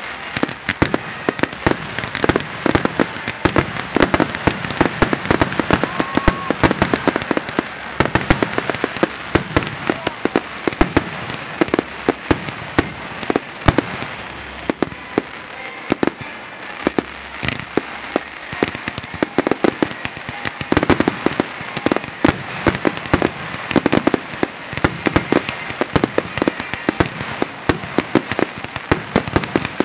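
Aerial fireworks shells bursting in a dense, continuous barrage: many sharp bangs and crackles a second, with louder reports standing out among them.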